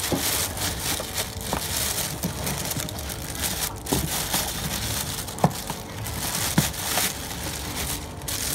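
Thin polyethylene (HDPE) plastic bag crinkling and rustling as it is handled around a boxed printer, with a few sharp clicks, the loudest a little past halfway.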